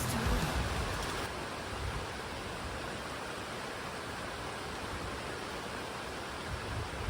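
Steady, even hiss of heavy rain falling, as the background music fades out at the start.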